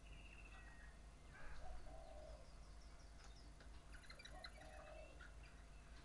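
Faint birdsong from several birds over a steady low hum. A short low call repeats about every three seconds, a few thin high whistles come near the start, and a quick burst of twittering chirps comes around the middle.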